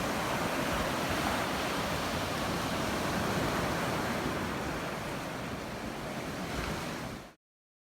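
Ocean surf breaking and washing up the beach, a steady rush of water that eases slightly, then cuts off suddenly about seven seconds in.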